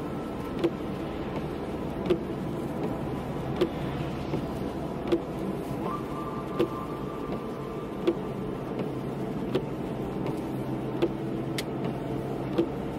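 Steady road and engine noise inside a car driving on a wet road, with a short click about every one and a half seconds from the windscreen wipers sweeping.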